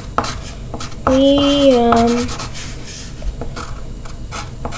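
Pencil writing on a sheet of paper on a hard tabletop: short scratchy strokes as letters are written. About a second in, a voice holds one drawn-out vocal sound for just over a second, the loudest sound here.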